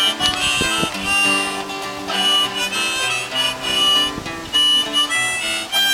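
Instrumental music: a harmonica playing a melody over guitar accompaniment.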